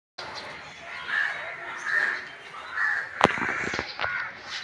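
A crow cawing three times, about a second apart, followed by a sharp click just after three seconds in.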